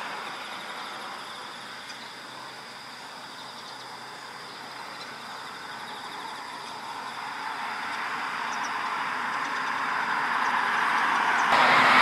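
A steady rushing background noise that gradually swells louder over the second half, with a faint, even high buzz above it.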